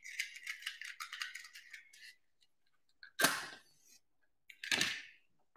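A box of matches being slid open and the matches rattling, a quick run of small clicks, then a match struck on the box and flaring about three seconds in. About a second and a half later a second short whoosh follows as the Bunsen burner's gas catches.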